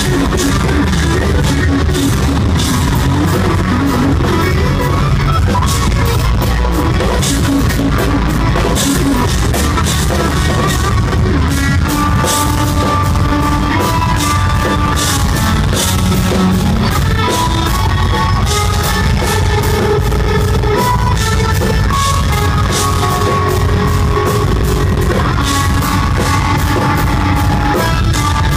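Instrumental progressive metal played live and loud: electric guitars playing intricate riffs over busy drum-kit playing. A clearer melodic guitar line comes forward about halfway through.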